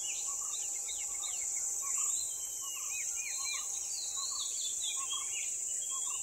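Insects buzzing steadily in a high hiss, with several birds calling over it: quick down-sweeping whistles and short repeated lower notes.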